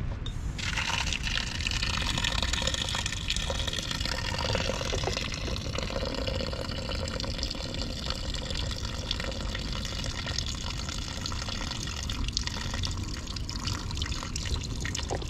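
Water running from an outdoor tap in a thin stream, splashing into a concrete basin over a metal drain grate; it starts abruptly about half a second in.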